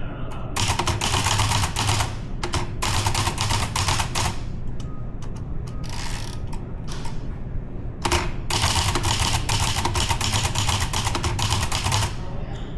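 Typewriter keys being struck in fast runs as a poem is typed, each run lasting one to three seconds with short pauses between them; the longest run comes in the second half.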